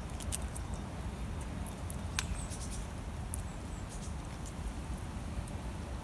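A person eating noodles with chopsticks: scattered short, wet mouth clicks and smacks as she slurps and chews, over a steady low rumble.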